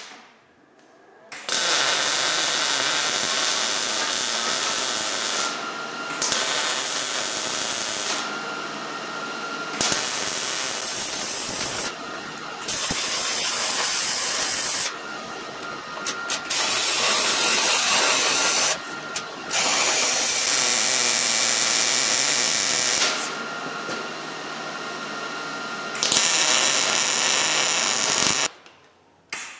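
Wire-feed (MIG) welder arc crackling steadily as beads are laid on a steel exhaust pipe joint. It starts about a second and a half in, runs in several stretches with brief dips between them, and stops shortly before the end.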